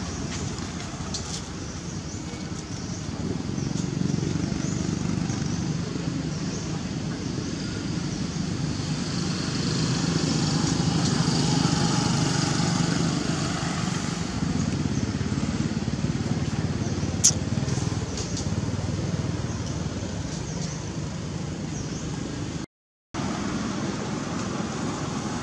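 Steady low rumble of road traffic, swelling about ten seconds in as vehicles pass. A single sharp click comes a little past halfway, and the sound cuts out for a moment near the end.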